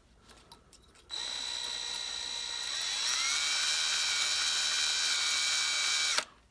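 Cordless drill running with a small bit, drilling holes into a brass cap: a steady motor whine that rises in pitch about two seconds in and cuts off just before the end. A few light clicks come before the drill starts.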